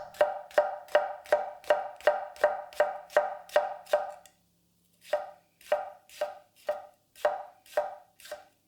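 Apex Ultra steel tall bunka kitchen knife chopping bell pepper on a cutting board, a steady run of sharp chops about two to three a second, each with a short ring. The chopping pauses for under a second about four seconds in, then resumes a little slower.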